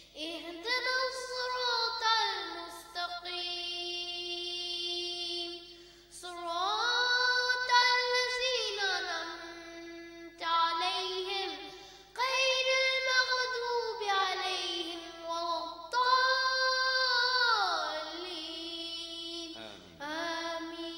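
A young boy reciting the Quran in the melodic tajweed style into a studio microphone. He sings several long phrases with held notes that glide up and down, with short breaks for breath between them.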